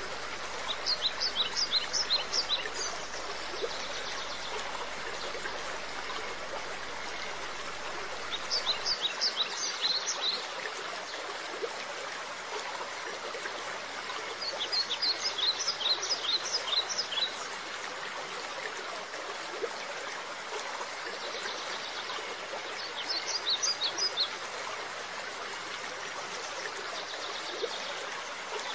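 Steady rushing, trickling water with a small songbird singing short rapid trilled phrases, each about two seconds long, four times at intervals of six to eight seconds.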